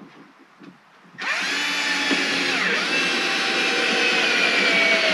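Cordless drill driving a construction screw with a T25 bit into a 2x4, starting about a second in and running steadily for about four and a half seconds, its motor whine dipping once and falling as the screw drives home.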